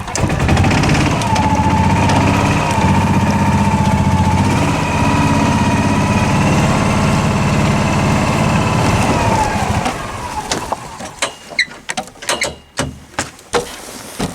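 A vehicle engine running steadily on a freezing morning, with a steady high whine over it. It shuts off about ten seconds in, and a handful of sharp knocks and clicks follow.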